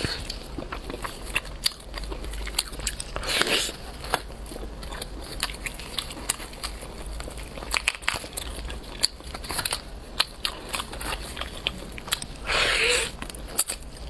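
Close-miked eating of a whole chili-spiced steamed chicken: biting into and tearing at the skin and meat, with wet chewing and many small clicks and smacks. There are two louder, longer bursts, one about three and a half seconds in and one near the end.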